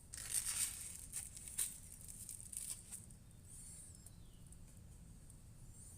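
Faint handling noise as a weight is hung on the end of a lever bar: a few light clicks and rustles in the first three seconds, then quiet.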